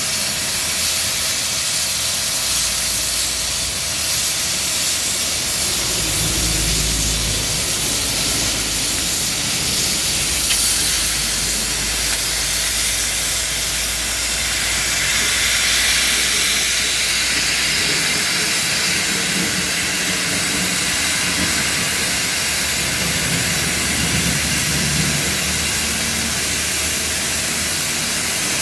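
Oxy-fuel cutting torch on a track-mounted cutting carriage hissing steadily as it cuts through steel, with a low rumble underneath through roughly the first half.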